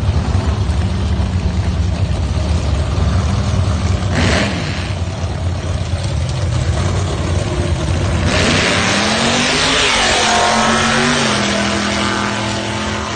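Drag cars' engines idling with a heavy, uneven rumble. About eight seconds in, a car launches at full throttle: a loud engine note rises, then drops in pitch as the car runs off down the strip.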